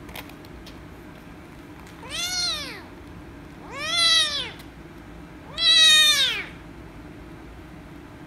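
Young kitten meowing three times, each meow rising and then falling in pitch, the last the loudest.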